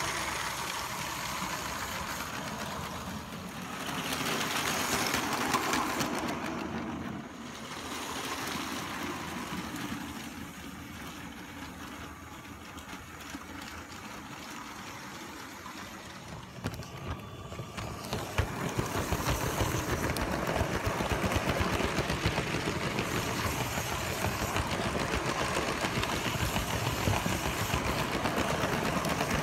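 Lego toy trains running on plastic track, their motors and wheels making a steady rattle. It swells twice early on as a train passes close, and from about 18 seconds on grows louder and dense with fine clicking, heard close up alongside the moving train.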